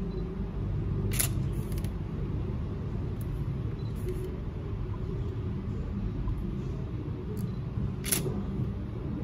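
DSLR shutter firing twice, about seven seconds apart, over a steady low rumble.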